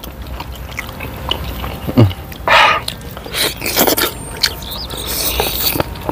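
Close-up eating sounds from two people eating saucy chicken by hand: wet chewing, lip smacks and short slurps and sniffs, coming irregularly, with a louder slurp or sniff about two and a half seconds in.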